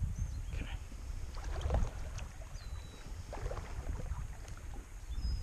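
Outdoor creek-side ambience: wind rumbling on the microphone, three short bursts of splashy scuffing from wading in shallow water, and a few thin, high bird chirps.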